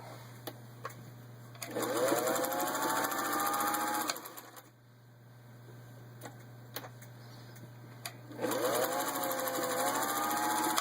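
1953 Singer 201 sewing machine stitching through six layers of denim in two runs of about two and a half seconds each, the motor's whine rising as it comes up to speed. A steady low hum sounds underneath throughout, including between runs.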